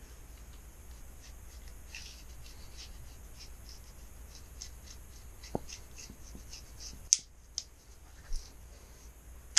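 Faint scattered ticks and rustles of hand work on a screen-door frame and its mesh and spline, with a few sharper clicks in the second half.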